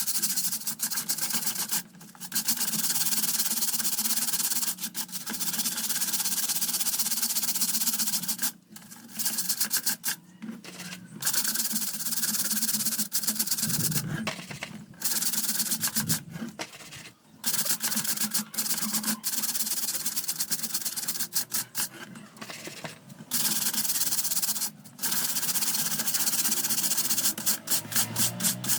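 Scrubbing and rubbing on a fan's parts during cleaning: long scrub passes of a few seconds each with short pauses between, turning into quick back-and-forth strokes near the end.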